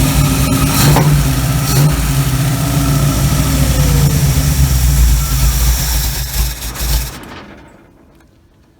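Small-block Chevy 350 V8 running steadily on a freshly rebuilt Holley 1850-2 carburettor, then cutting off suddenly about seven seconds in. The ignition timing has not yet been set.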